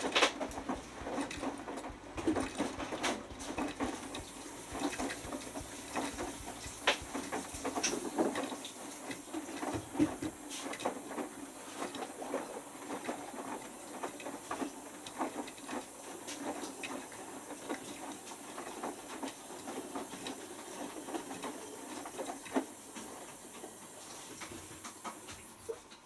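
Beko WMB91442LR front-loading washing machine in its wash, the drum tumbling wet laundry so that water sloshes and splashes with many small knocks. It grows quieter near the end as the drum comes to rest.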